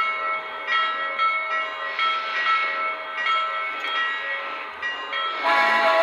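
Lionel Legacy O-gauge steam locomotive's sound system blowing its chime steam whistle in a run of short toots, then a louder, longer blast about five seconds in.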